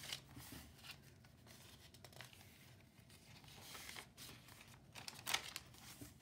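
Paper pages of a handmade junk journal being turned by hand, faint rustling and crinkling, with a sharper rustle about five seconds in.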